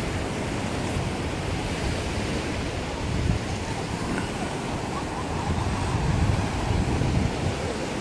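Ocean surf washing on a beach, with wind buffeting the microphone in low rumbling gusts that grow a little stronger about six seconds in.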